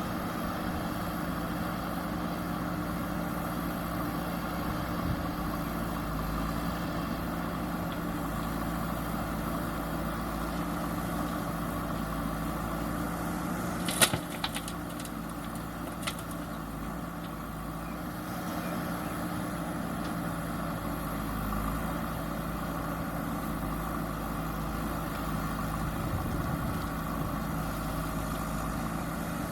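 JCB backhoe loader's diesel engine running steadily, with one sharp knock about halfway through and a few smaller clicks over the next two seconds.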